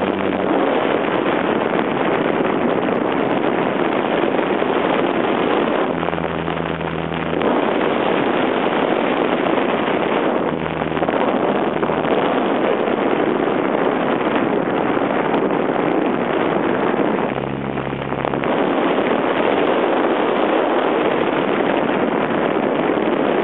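Steady noise of an RC plane in flight, heard through its onboard camera's microphone: the motor and propeller mixed with wind rush. The noise drops briefly three times, and a low hum comes through during each drop.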